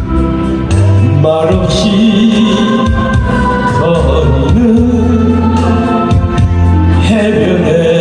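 A man singing a Korean trot song into a handheld microphone over a backing track with a steady beat and bass, holding long notes with vibrato.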